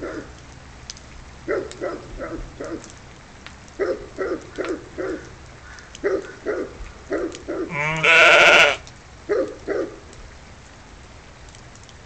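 Dog barking in repeated clusters of two to four barks, an alarm at a bald eagle perched in a tree over the lambs' yard. About eight seconds in, one loud, wavering sheep bleat.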